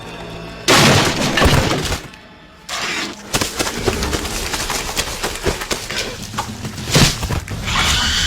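A sudden loud crash about a second in, then a dense run of crackling, clattering impacts like falling debris. A steady high-pitched tone comes in near the end.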